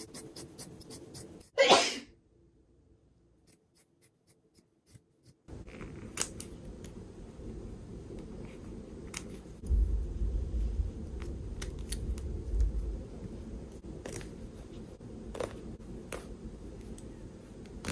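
A single sneeze about two seconds in, followed by faint scattered clicks and handling noises over a low steady hum.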